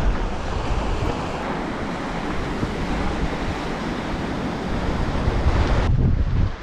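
Small waves washing onto a sandy, stony beach, a steady hiss of surf, with wind buffeting the microphone in a low rumble. The surf hiss drops away suddenly near the end.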